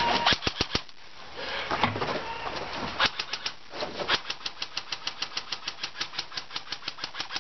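Airsoft gun firing: a few quick shots near the start, then a long, steady string of shots at about five a second.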